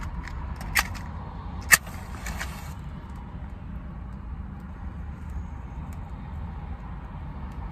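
A wooden match struck to light a small cigar: two sharp clicks about a second apart, the second followed by a brief hiss as the match flares. After that there is only a steady low hum.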